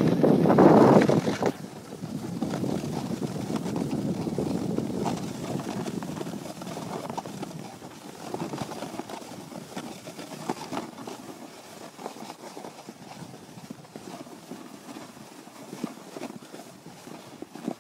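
Wind buffeting the microphone for about the first second and a half, then a softer rustle of movement over snow with irregular soft crunches, roughly one a second.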